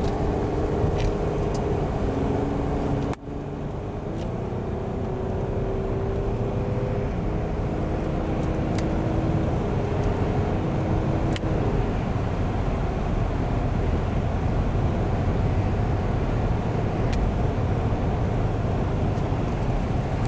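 Car driving along a road: steady low engine and tyre rumble, with a droning engine note that shifts pitch a few times and fades out about eleven seconds in. The sound briefly drops out about three seconds in.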